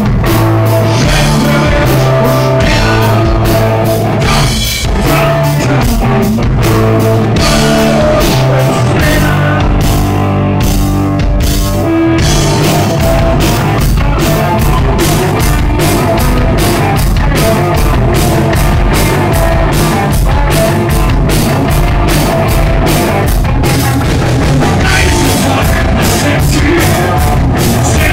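Live rock band playing loud: electric guitar and a drum kit keeping a steady, driving beat.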